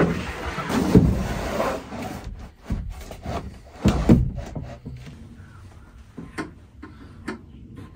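A plywood sheet being slid and set into place on a plywood frame: wood scraping on wood with several knocks, the loudest about a second and four seconds in.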